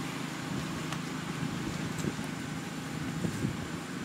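Steady outdoor background rumble, with a few faint clicks about one, two and three seconds in.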